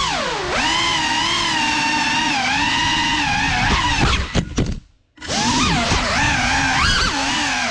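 GEPRC CineLog35 cinewhoop's brushless motors and ducted propellers whining, the pitch rising and falling with the throttle. About five seconds in, the whine drops out to near silence for a moment, then comes straight back.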